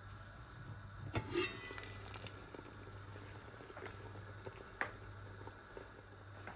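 Aluminium stockpot lid lifted off with a metallic clatter and brief ringing about a second in, over the steady low bubbling of water at a full boil. A single light metal knock about five seconds in as a steel bowl is set into the pot to steam.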